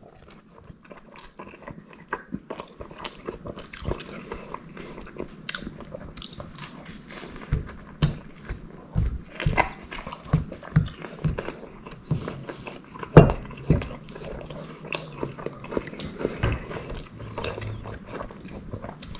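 Close-miked mouth sounds of biting into and chewing a pan-toasted breakfast burrito: irregular bites and chews that come thicker from about seven seconds in, with one sharper crunch around thirteen seconds.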